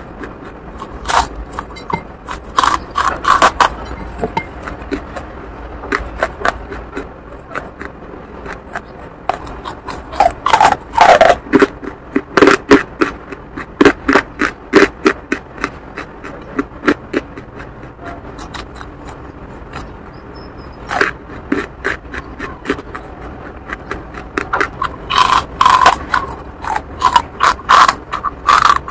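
Close-up crunching and chewing of pieces of charcoal: bursts of sharp, crisp crunches with short pauses between them.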